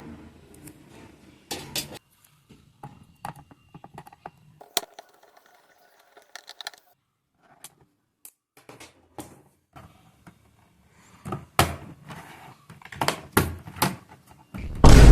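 Scattered plastic clicks, taps and knocks from a laptop being handled and opened up, with a loud heavy thump near the end.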